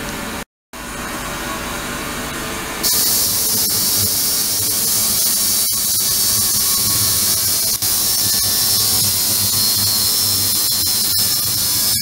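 Ultrasonic cleaning tank driven by 38 kHz and 72 kHz transducers, with the water cavitating and giving off a steady hiss with faint whining tones. About three seconds in, a much louder high hiss comes in and holds.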